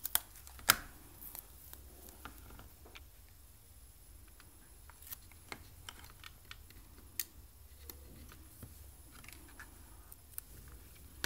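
Small clicks, taps and rustles of masking tape being pulled from a tape dispenser and cut against a ruler on a cutting mat, with a sharper tap just under a second in and another about seven seconds in.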